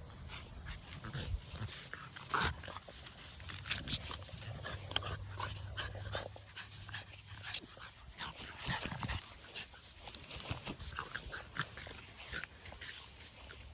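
French bulldog making a rapid, irregular series of short, sharp noises, with a steady low drone for a couple of seconds near the middle.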